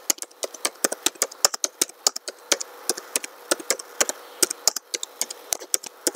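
Typing on a computer keyboard: a quick, irregular run of key clicks, several a second, as a line of text is typed.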